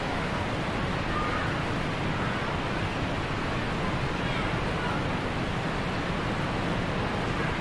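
Waterfall sound effect: a steady, even rush of falling water with no change in level.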